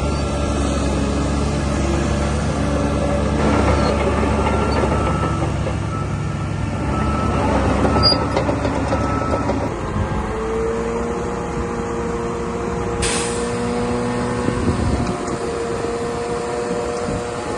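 DH17 C2 LGP bulldozer running while it pushes soil, a heavy diesel engine note; about ten seconds in the sound shifts to a steadier, higher tone, with a short hiss about three seconds after that.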